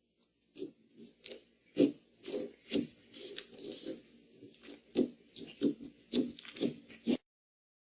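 Slime being squeezed and pressed by hand, making an irregular string of wet clicks and crackling pops. It cuts off abruptly about seven seconds in.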